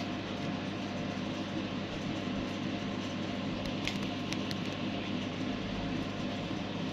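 Steady low machine hum and background noise, with a few faint clicks about four seconds in.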